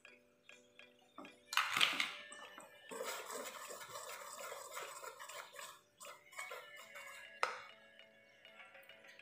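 Wire whisk scraping and stirring through flour and a raw egg in a metal mixing bowl, with a sharp knock about two seconds in, over soft background music.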